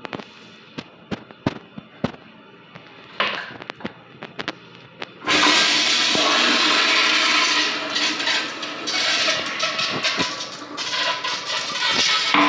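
A few light clicks and knocks, then, about five seconds in, a Mansfield Quantum toilet starts flushing: a sudden loud rush of water that keeps going, rising and falling a little.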